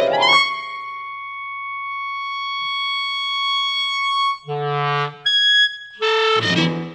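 Clarinet sliding up into a high note and holding it for about four seconds, swelling slightly. Piano chords enter after that, followed by a short high note and a loud chord near the end.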